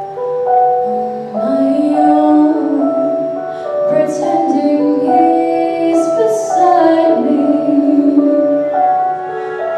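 A solo female voice singing a slow ballad over an instrumental accompaniment, the voice coming in about a second in.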